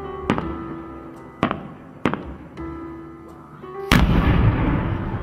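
Fireworks: a few sharp pops, then a loud firework shell burst about four seconds in, trailing off into a long noisy tail.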